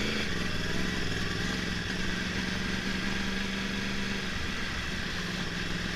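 2011 Yamaha YZF-R1's crossplane inline-four engine idling steadily, with the misfire the owner is trying to track down.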